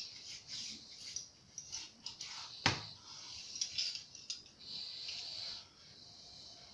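Cleaning rod with a cloth patch rubbing and scraping in and out of a black-powder revolver's barrel to dry it after washing, with one sharp knock about two and a half seconds in.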